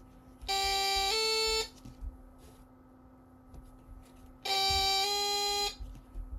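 Homemade electronic two-tone train horn circuit sounding twice, imitating a modern British Rail horn. Each blast starts on a low tone and steps up slightly in pitch about half a second in, then holds for a moment more before stopping.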